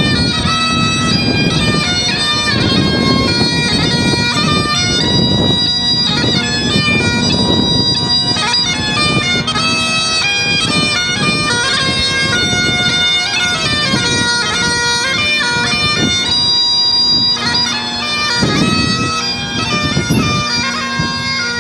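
Bagpipe playing a Scottish march: a melody of quickly changing notes over a steady drone, unbroken throughout.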